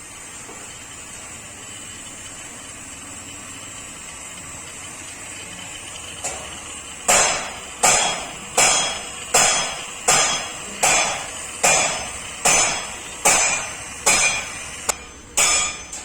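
Hammer blows during a refrigeration compressor installation: about a dozen evenly spaced strikes, roughly one every 0.8 seconds, each with a short ring, starting about seven seconds in over a steady background hiss.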